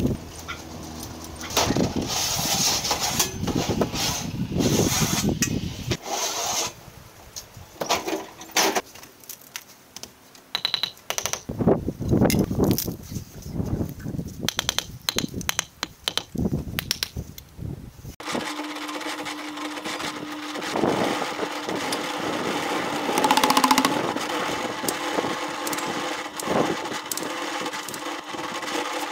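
Building-work knocks and taps, among them a mallet setting concrete blocks. From about two-thirds through, a steady machine hum at a constant pitch, a concrete mixer running.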